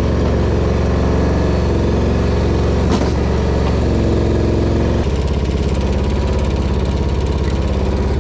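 Mini excavator's diesel engine running steadily, with a sharp click about three seconds in. About five seconds in the engine note changes and takes on a pulsing beat.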